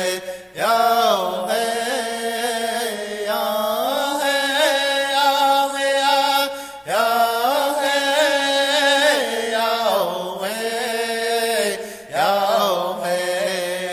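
A song plays with a solo voice singing long held notes that waver and slide in pitch. The phrases break off briefly about every six seconds.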